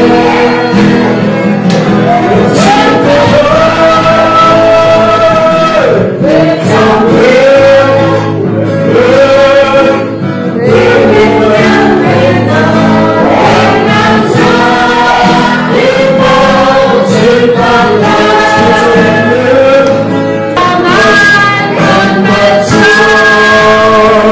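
Gospel worship song: voices singing a slow melody with long held, gliding notes over steady instrumental accompaniment.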